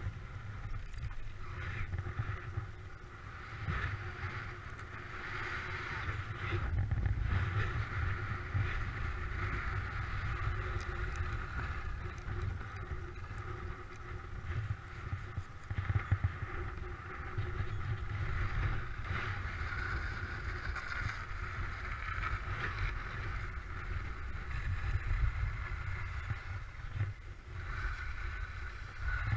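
Skis sliding and scraping over firm snow, a steady hiss that swells and fades with the turns, under heavy wind buffeting on the action camera's microphone.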